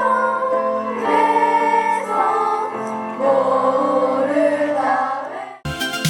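A choir singing a slow, sustained melody in several parts. About five and a half seconds in it cuts off abruptly and a different music track with a heavy bass line and a beat starts.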